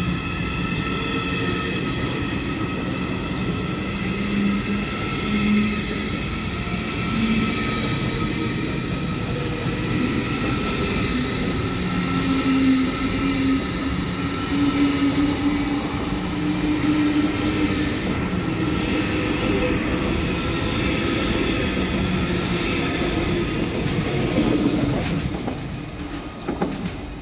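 Deutsche Bahn ICE high-speed electric train running past along the platform: a steady whine from its electric drive over wheel and rail rumble. A lower hum slowly rises in pitch as the train gathers speed. The sound drops away near the end.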